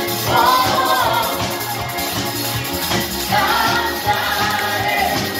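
Live band pop music with electric bass and drums, and a singer holding two long notes, one near the start and one in the middle.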